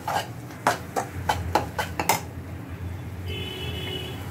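Metal spoon clinking and knocking against a cooking pan while stirring the pav bhaji mixture, a quick run of about eight strikes over the first two seconds. A brief steady high tone sounds near the end.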